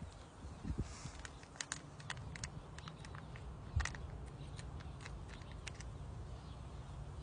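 Eating MRE chicken pesto pasta: scattered small clicks and mouth sounds, one sharper click about four seconds in, over a low steady rumble.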